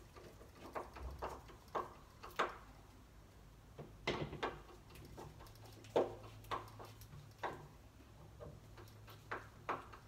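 Irregular light clicks and knocks of metal lock parts being handled and screwed into place while fitting a rim cylinder (Yale-type) lock, with the loudest knocks about four and six seconds in.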